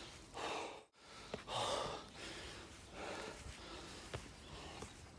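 A man breathing hard and panting, a heavy breath every second or so, out of breath from climbing uphill. The sound drops out for an instant about a second in.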